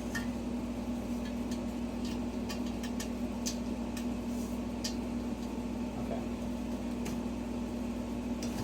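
Scattered light clicks and taps of shoe rack parts and screws being handled and fitted together, over a steady low hum in the room.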